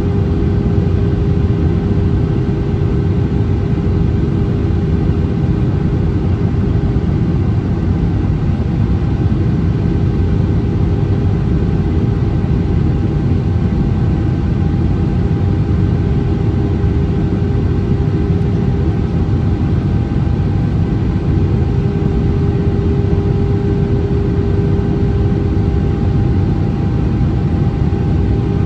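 Cabin noise inside an Airbus A319-100 in flight: the steady roar of the engines and rushing air, with two constant humming tones running through it.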